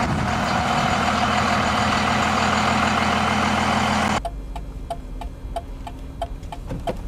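A vehicle engine running steadily and loud, close by. About four seconds in it cuts off abruptly to the inside of a car, where a turn signal ticks about three times a second over a low engine hum.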